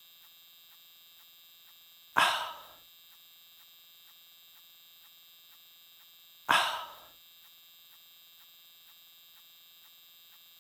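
Two short dog-bark sound effects about four seconds apart, each cut off after about half a second, over a faint steady hum with light regular ticking.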